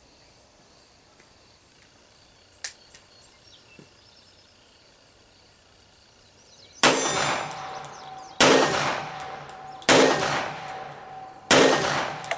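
Rock Island Armory XTM-22 semi-automatic pistol firing .22 Magnum rounds: four shots about a second and a half apart, each with a ringing tail. A single sharp click comes about two and a half seconds in.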